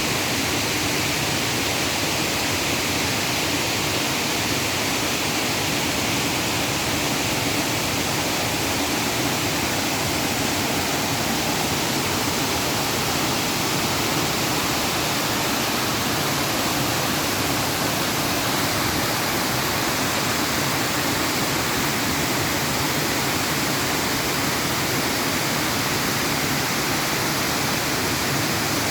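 Waterfall on the Mochara river, water pouring and rushing in a steady, unbroken roar.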